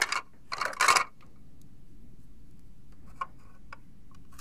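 Plastic toy food pieces clattering against each other as a hand rummages in their box, then a few light clicks as a plastic ham slice is set down on a plastic bread slice.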